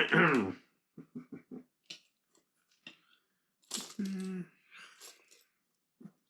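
A pet dog's short vocal noises: a cry at the start, a quick run of four short grunts about a second in, and a longer, lower growling sound about four seconds in.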